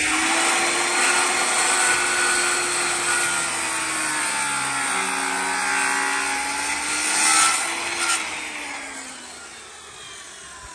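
Bosch corded circular saw cutting an angled end off a 2x6 wooden board, the motor running under load with its pitch wavering as the blade goes through. A little after two-thirds of the way through, the cut ends and the saw winds down and fades.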